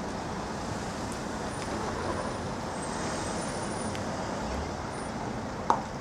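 Steady background noise of road traffic, with one sharp click about three-quarters of a second before the end.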